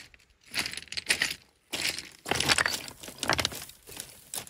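Dry grass being pulled and crushed by hand: a run of irregular crackling, rustling bursts, each about half a second long.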